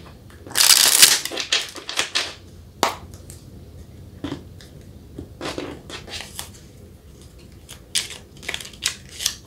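Tarot cards being shuffled by hand: a loud burst of rustling shuffle in the first couple of seconds, then scattered taps and rustles of cards, with more shuffling near the end.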